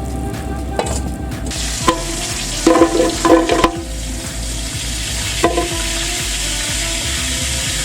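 Food frying in hot oil in a pan, a steady sizzle that comes in about a second and a half in, with a metal utensil clanking against the pan several times as it is stirred.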